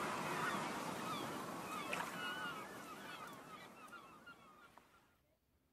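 Many short, quick bird chirps over a steady hiss, the whole fading out to silence about five seconds in.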